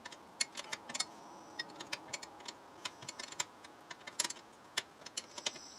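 Light, irregular metallic clicks and taps of hand tools, several a second, as the brake caliper bolts are put back in.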